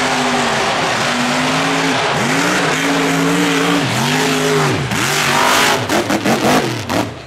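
Mega mud truck's engine revving hard, its pitch swinging up and down several times over a loud rushing noise. About six seconds in it breaks into short, choppy bursts.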